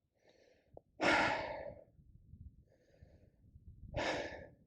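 A hiker breathing heavily close to a neck-mounted microphone: two slow breath cycles, each a faint inhale followed by a louder, longer exhale, about a second in and again near the end.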